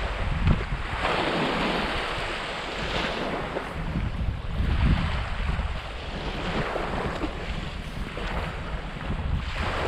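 Small waves washing up on a sandy shore, swelling and falling every couple of seconds, with wind buffeting the microphone.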